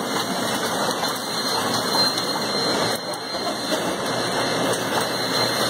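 Steady machinery noise of an auto-parts assembly line with its conveyor belt running: an even rushing noise with a faint high whine over it.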